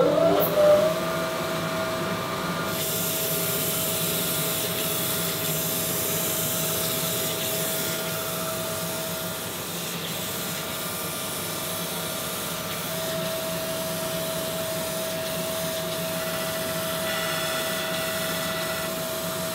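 Crankshaft grinding machine grinding the main bearing journals of an Audi RS4 crankshaft. A steady whine rises and settles within the first second, and a loud, steady hiss of the grinding wheel working the journal comes in a little under three seconds in.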